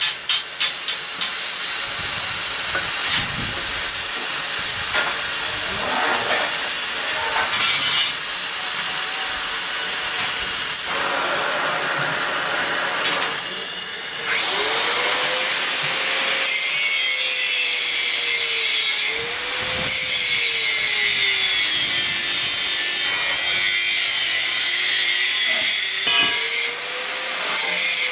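Oxy-LPG cutting torch hissing steadily as it cuts through a steel pipe, with a wavering whistle-like tone in the second half.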